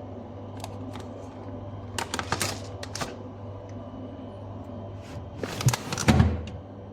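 Scattered clicks and knocks over a steady low hum, with a louder cluster of knocks about six seconds in.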